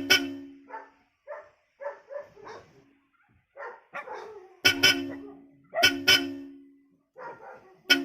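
Several short taps of Bosch Europa electric horns: brief toots, each a steady tone cut off after about half a second, near the start and then about four more from the middle on. A dog barks in between.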